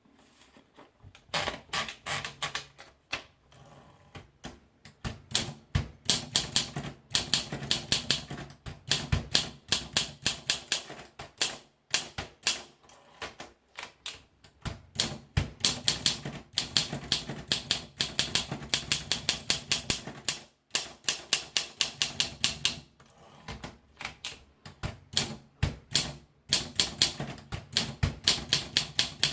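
Olympia SM2 portable manual typewriter being typed on: sharp key strikes several a second, in runs broken by short pauses.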